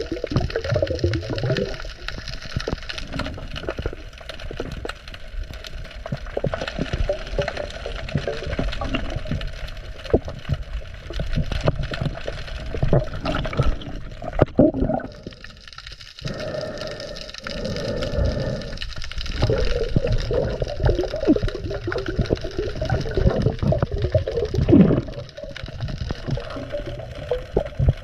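Water sloshing and gurgling close to the microphone as a snorkeling spearfisher swims, with a short lull about halfway through.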